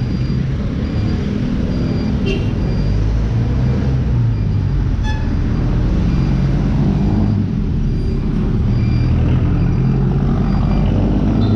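Road traffic: engines of passing jeepneys, motorcycle tricycles and cars running, a steady low rumble.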